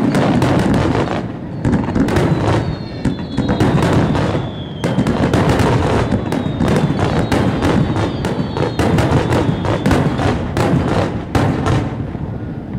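Aerial fireworks shells bursting in a dense finale barrage: bang after bang in rapid succession, overlapping and crackling, thinning out and stopping about a second before the end.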